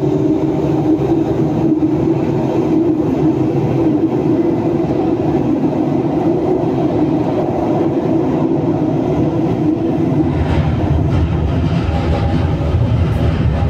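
CT251 metro train running through a tunnel: a steady rumble and hum. The deep part of the rumble grows louder from about ten seconds in.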